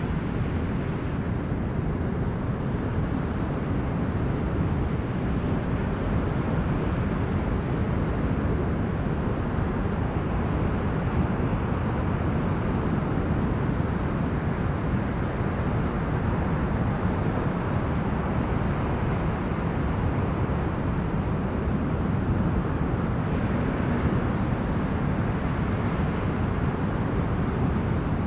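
Winter storm wind blowing hard on a seashore with sea waves breaking, a steady deep rushing noise, the wind buffeting the microphone.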